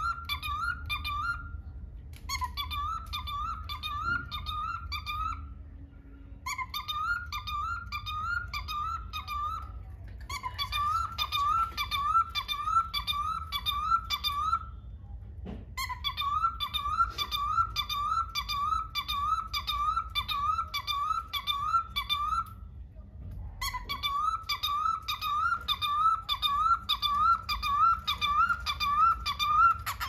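Cockatiel chirping: a steady series of short, rising chirps, about two a second, in runs of several seconds with brief pauses between them.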